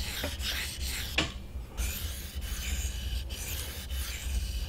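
Steel knife blade being worked back and forth on a 1000-grit sharpening stone, a smooth, not gritty rasp repeating stroke after stroke, with a short pause about a second in.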